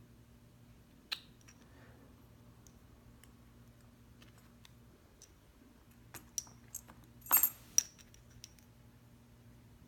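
Small metal parts of an American 1205 padlock clicking and clinking as it is taken apart: a single click about a second in, then a few light clicks and a louder metallic clatter ending in a sharp click about seven seconds in.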